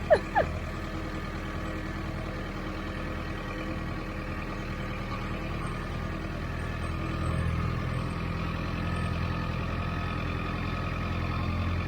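Vehicle engine running steadily at low revs, swelling a little in the second half. Two short, loud calls falling in pitch come just at the start.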